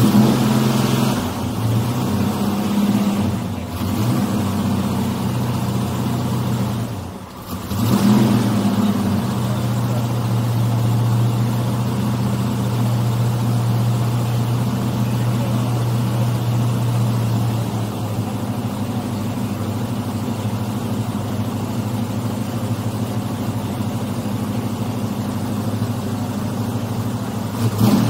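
Car engine running at low speed with a steady low hum. It drops away briefly about seven seconds in and picks up again a second later.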